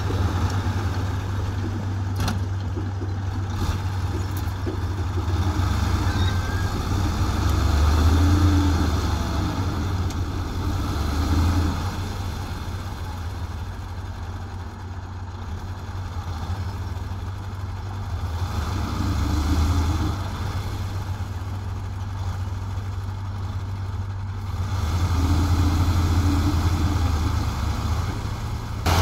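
Dump truck's diesel engine running with a steady low hum, rising in revs about four times while the raised tipper body tips out its load of soil.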